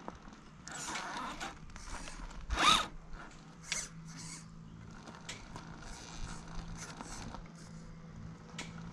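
Axial Early Bronco scale RC crawler climbing over rock on RC4WD Attitude M/T tyres: a string of short scraping, rasping sounds from tyres and chassis grinding on the rock, the loudest about two and a half seconds in.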